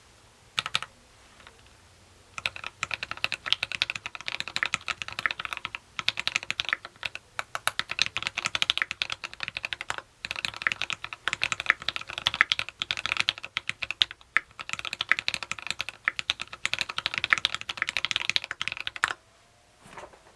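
Fast typing on a TX66 custom mechanical keyboard with lubed, filmed Tealios V2 linear switches, a brass plate and PPS keycaps: rapid keystroke clacks in long runs with brief pauses. The typing starts about two seconds in and stops about a second before the end.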